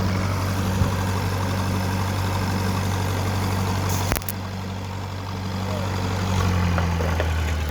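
Flathead engine of an engine-driven Lincoln arc welder running steadily, with the crackling hiss of a stick-welding arc over it. About four seconds in there is a sharp click and the sound drops, then it swells again about two seconds later.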